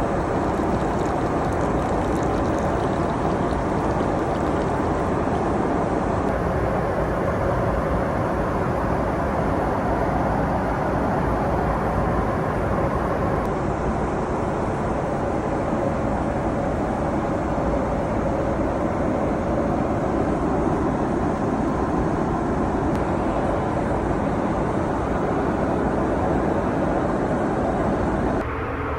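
Steady jet cabin noise inside a Boeing 777-300ER, an even rushing hum of engines and airflow.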